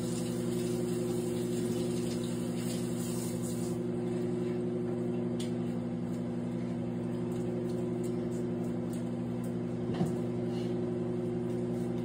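Countertop microwave oven running: a steady electrical hum with its fan, and a faint knock about ten seconds in.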